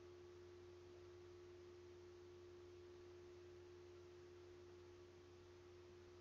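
Near silence: only a faint, steady hum with one held tone, and no audible stirring.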